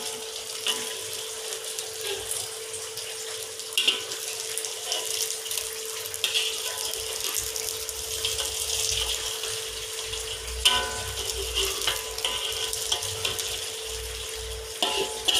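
An egg omelette with chopped greens, shallots and diced luncheon meat sizzling steadily in hot oil in a wok. A metal spatula scrapes and taps against the wok a few times.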